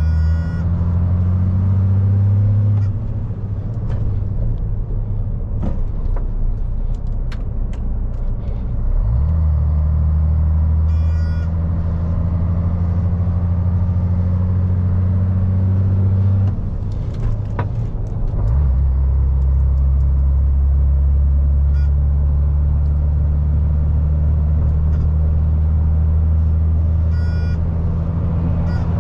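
Diesel engine of a MAN lorry pulling on the road, with a low steady drone. The engine note falls away about three seconds in and again around seventeen seconds in, then picks up and holds steady, as with gear changes on its split gearbox. A few short clicks sound over it.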